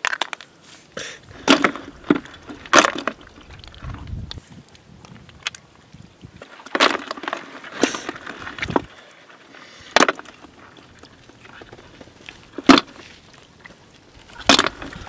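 Snail shells clacking against each other and into a plastic bucket as they are picked from a rock pool by the handful: sharp knocks every second or few, with a longer rattling cluster about seven to nine seconds in.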